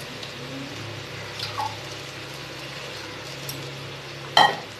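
Ground thuthuvalai paste simmering steadily in an aluminium kadai. About four seconds in there is a single sharp, ringing metallic clink.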